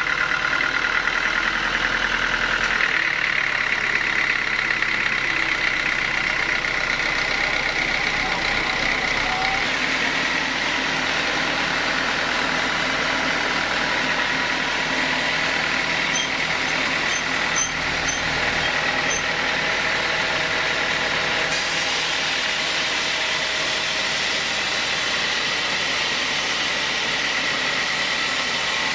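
Sawmill saw running steadily as it cuts through a teak log, a continuous high whine and hiss with machine drone beneath.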